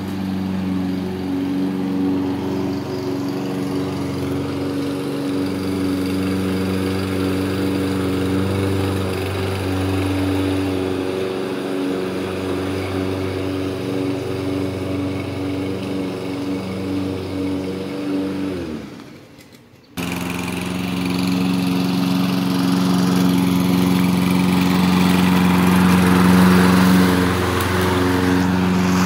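Walk-behind gasoline lawn mower engine running steadily. About two-thirds of the way through, its note drops in pitch and dies away. Then a mower is suddenly running again, louder and closer.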